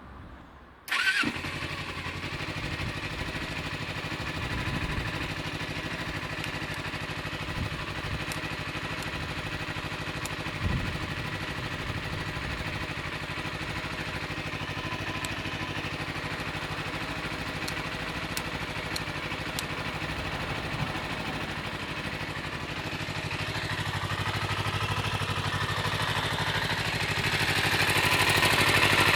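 Kawasaki Eliminator 250SE motorcycle engine starting about a second in, then idling steadily; it grows louder near the end.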